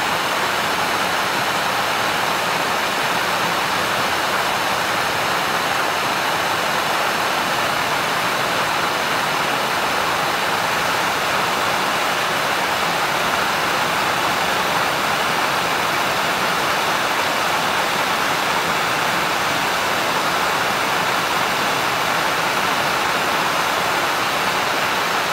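Hand-held MAPP gas torch burning with a steady, loud rushing hiss of the flame as it heats a nail red-hot.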